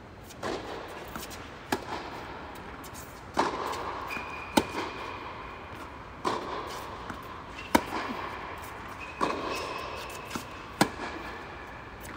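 Tennis rally in an indoor tennis hall: sharp racket strikes and ball bounces come about every one and a half seconds, each one echoing around the hall.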